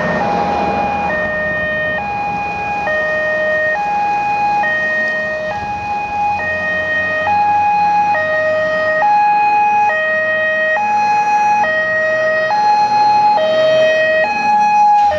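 Dutch fire engine's two-tone siren alternating between a high and a low tone, changing just under once a second, getting louder as it approaches, with the engine's rumble underneath. Right at the end, as it passes, the pitch of both tones drops slightly.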